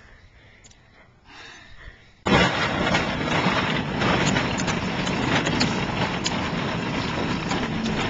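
Quiet outdoor background, then about two seconds in a sudden loud, steady rattling rumble: a plastic ride-in toy car rolling over pavement, heard from inside the car.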